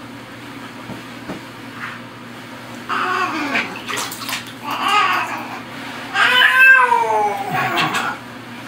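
Tabby cat meowing: three drawn-out meows, the last one, about six seconds in, the longest and loudest, rising and then falling in pitch.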